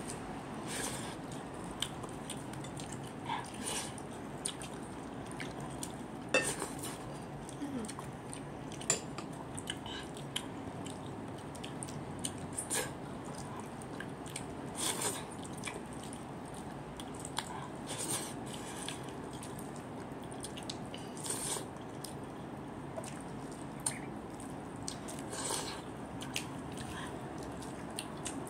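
Mouth sounds of someone eating cooked rice by hand: soft chewing and lip smacks, coming as scattered, irregular short clicks over a steady faint hiss.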